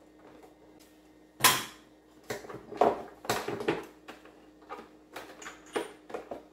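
Parts being handled and fitted on a riding mower's engine during reassembly: a sharp knock about one and a half seconds in, then a cluster of clicks and clunks, and a few lighter taps near the end.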